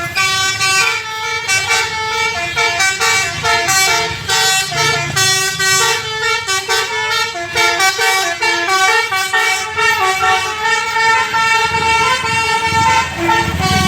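Bus 'telolet' basuri musical horn playing a quick tune of short stepped notes, over a low rumble.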